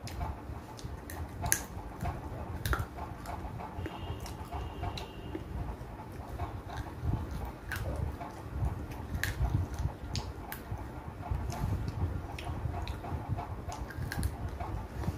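A person eating with her fingers close to the microphone: chewing, with many short wet clicks and smacks as she sucks curry off her fingers.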